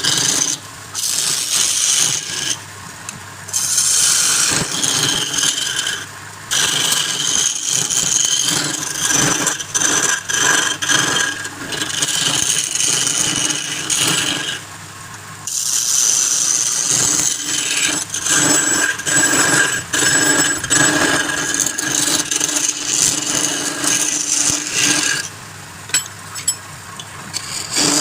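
Wood lathe spinning a workpiece while a hand-held turning tool cuts and scrapes it. The scraping comes in stretches of several seconds, broken by short pauses, with a few sharp clicks near the end.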